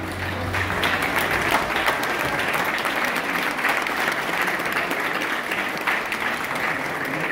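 Audience applauding, a dense steady clapping, as the samba music ends about a second in.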